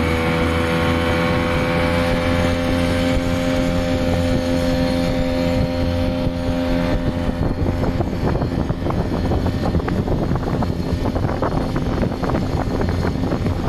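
Outboard motor of a small motorboat running steadily under throttle, its pitch settling slightly in the first seconds. About halfway through, a rough, choppy noise grows and partly covers the engine.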